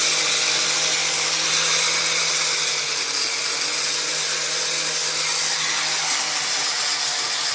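Electric angle grinder running at a steady speed while sanding a wooden board, a steady motor whine under the rasp of the disc on the wood.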